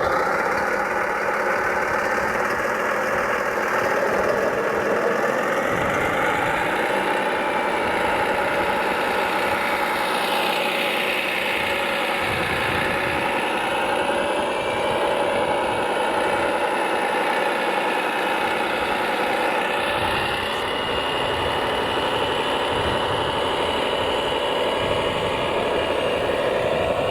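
Radio-controlled construction vehicles running: a steady mechanical drone with whining motor pitches that slowly rise and fall.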